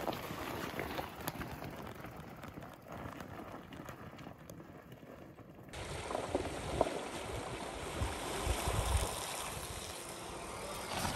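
Bakcou hunting e-bikes ridden over a rough dirt trail: a steady rumble of tyres and rattling, with wind buffeting the microphone. There are a few low thumps about eight to nine seconds in.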